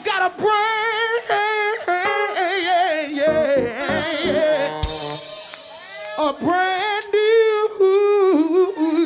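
Male lead singer ad-libbing a soul vocal run into a microphone, with only faint backing: a string of high melismatic phrases with heavy vibrato, ending on a long, wavering held note.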